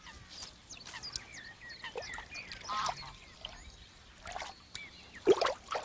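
Waterbirds calling: many short chirps and squeaky calls, with a louder call about five seconds in.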